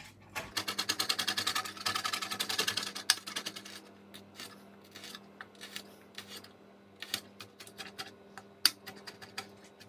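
Chef's knife rapidly chopping fresh mint on a chopping board: quick taps of the blade, about eight a second, for the first few seconds, then slower, scattered chops.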